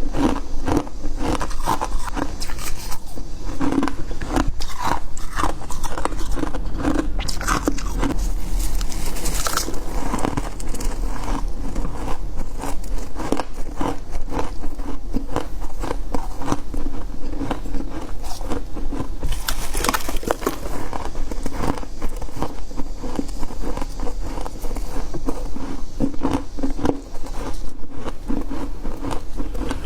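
A person biting and chewing freezer frost: a continuous run of close crunches and crackles.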